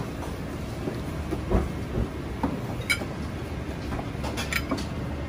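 Metal tongs clinking against a porcelain bowl while serving stir-fried food: a sharp ringing clink about three seconds in and a few lighter taps after, over a steady low rumble of commercial-kitchen background noise.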